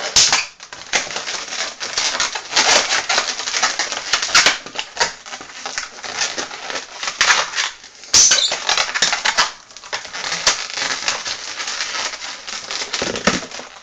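Inflated 260 latex modelling balloons being twisted and handled: a dense run of rubbing and squeaking with sharp crackles, loudest right at the start and about eight seconds in.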